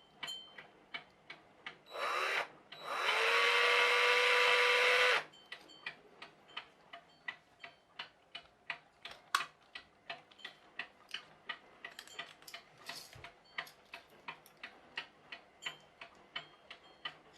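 Electric drill run in two short bursts, the second spinning up and running steadily for about two seconds. After it stops, a clock ticks steadily.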